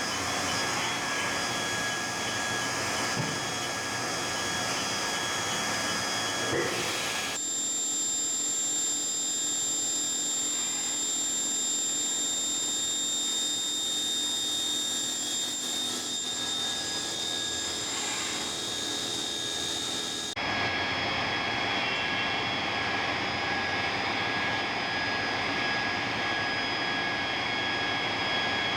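Haas VF3D vertical machining center running under power: a steady mechanical hum and whine with several high tones over a hiss, changing abruptly twice.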